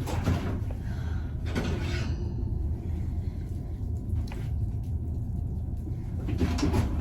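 Kitchen handling noise: a few short knocks and clatters over a steady low rumble.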